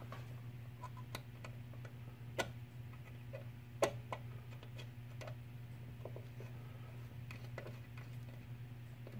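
Scattered small clicks and taps of thin thermostat wires being handled at the screw terminals of a thermostat base, over a steady low hum. The two loudest clicks come about two and a half and four seconds in.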